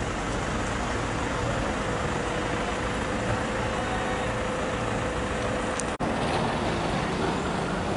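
Steady road and engine noise of a moving vehicle in city traffic, with a faint steady hum partway through and a brief dropout about six seconds in.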